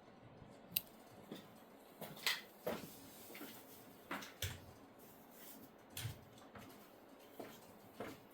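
Faint, scattered knocks and clicks, about eight of them a second or so apart, from things being handled. No engine running and no recoil pull.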